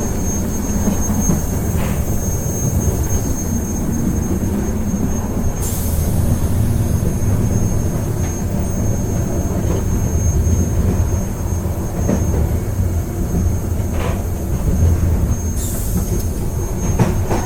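A train running along the track with a steady low rumble. A few light knocks come through it, and two brief high hisses sound about six seconds in and near the end.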